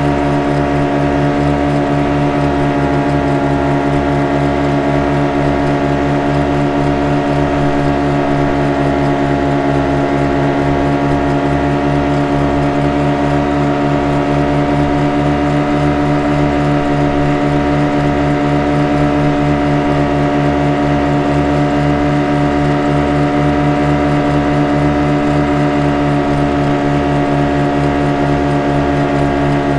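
Motorboat engine running steadily at constant speed, a droning hum with an even fast pulse underneath.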